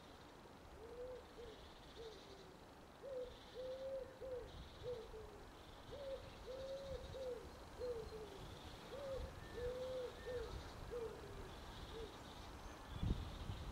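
A pigeon cooing in repeated phrases of several short, low notes, with a few faint higher chirps. A brief low rumble comes near the end.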